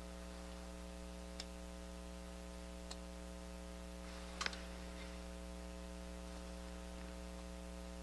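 Steady electrical mains hum, with three faint clicks as a small switch board is handled and wiped in a cloth. The loudest is a double click about four and a half seconds in.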